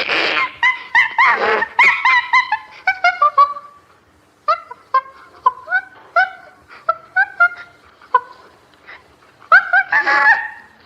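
Chimpanzee vocalising: a fast run of short pitched calls, bending up and down in pitch, with harsh screams at the start and near the end and sparser calls in between.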